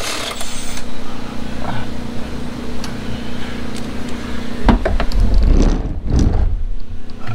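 Steady background hum with a few light clicks, then, past the middle, the camera being picked up and moved: heavy rumbling handling noise with several knocks.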